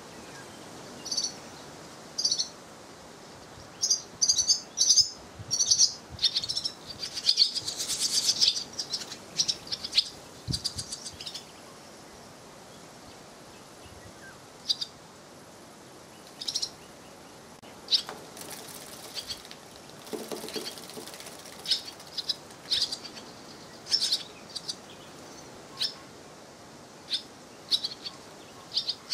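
Swallows twittering around their nest: short, high chirps that come in scattered bursts, thickest in a busy run a few seconds in, then spaced out again.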